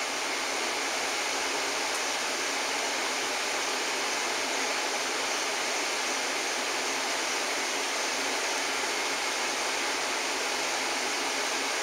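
Steady, even hiss of background noise with no change in level and no animal sounds heard above it.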